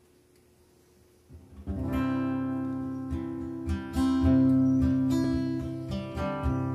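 Acoustic guitar starting a slow song intro about a second and a half in: chords strummed and left to ring, a new chord struck every couple of seconds.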